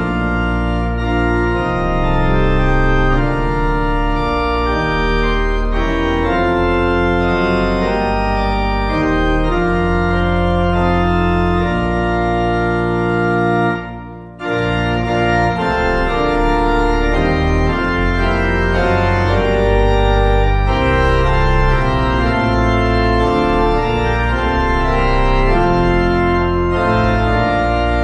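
Organ playing a hymn tune in slow, held chords, with a brief pause about halfway through where one verse ends and the next begins.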